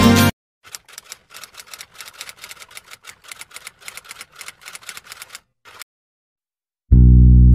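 A run of light, rapid clicks, several a second, for about five seconds, like typewriter keys. The clicks stop, and after a short silence a loud, low, sustained tone cuts in near the end.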